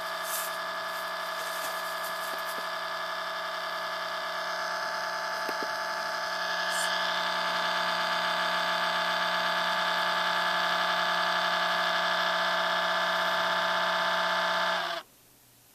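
Mac computer's cooling fan giving a loud, steady whine, growing a little louder about six seconds in and cutting off suddenly near the end. The sign of a dusty fan with a dry bearing in need of lubrication.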